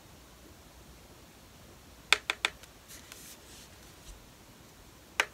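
Sharp little taps of a makeup brush against a plastic eyeshadow palette: three quick clicks about two seconds in, a soft brushing scrape in the pan, then two more clicks near the end.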